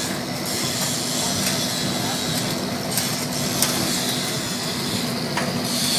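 3500 kW industrial sawdust burner running at full fire: a steady rushing noise of flame and blower with a constant low hum, broken by a few sharp crackles.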